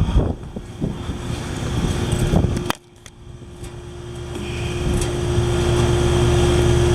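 Steady vehicle running noise with a fixed hum and low rumble. A sharp click about two and a half seconds in cuts it much quieter, and the rumble then builds back up over the next few seconds.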